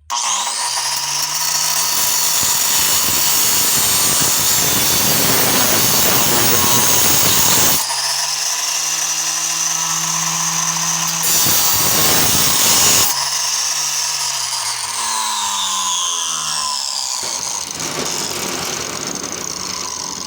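Hand-held grinder fitted with an oversized table-saw cutoff wheel, cutting through a metal door knob. It starts abruptly and runs loud, its motor pitch dipping and recovering under load, then slowly fades near the end.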